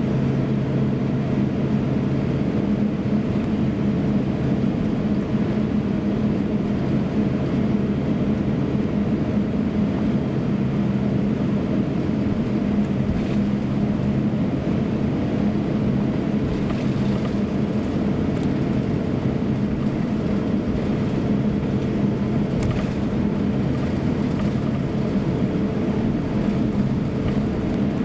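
Steady low drone of an airliner's engines heard from inside the cabin while taxiing, a constant hum with a few steady low tones.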